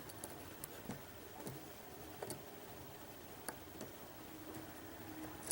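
Faint, scattered ticks and clicks of a lock pick working the pins inside a Mul-T-Lock Interactive cylinder, about a dozen in all at irregular spacing.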